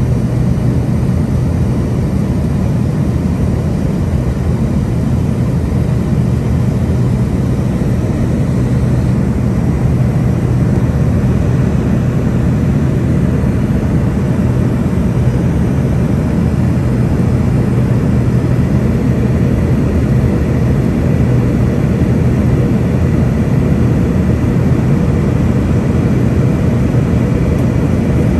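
Cabin noise inside an Embraer ERJ145 jet in flight: the steady low drone of its rear-mounted Rolls-Royce AE3007 turbofan engines under a constant rush of airflow, unchanging throughout.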